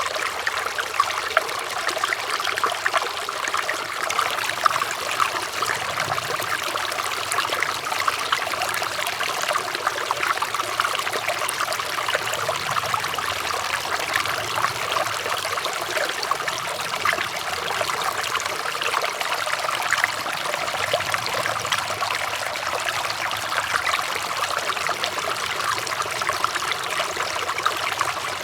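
River water flowing and splashing steadily, a continuous bright babbling with many small splashes.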